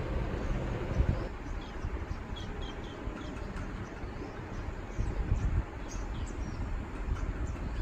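Birds chirping: many short, high chirps scattered through the clip from about a second and a half in, over a low, steady rumble with a couple of louder low thumps.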